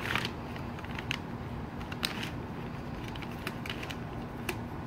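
Brown paper lawn bag crinkling and rope rustling as the rope is knotted around the bag's neck on the mower's chute: a few short, scattered crackles over a steady low background hum.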